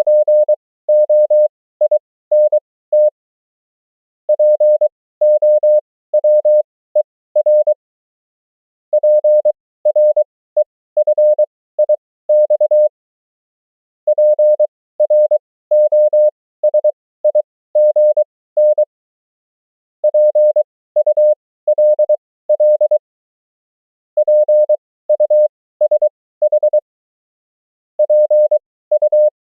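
Morse code (CW) tone sending words and abbreviations at 20 words per minute (characters at 23 wpm): a single steady mid-pitched tone keyed on and off in quick dots and dashes. About seven words sound, each followed by a pause of about a second.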